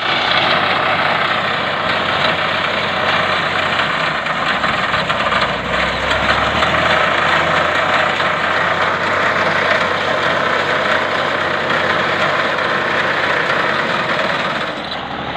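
Massey Ferguson 135 tractor running steadily with its reaper machine, a dense unbroken engine-and-machinery noise that dips slightly near the end.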